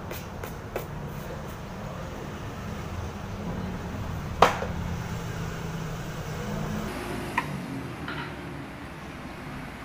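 Steady low rumble of city traffic, with a few light clicks and knocks from a canvas shoe being handled and put on. The sharpest click comes about four and a half seconds in.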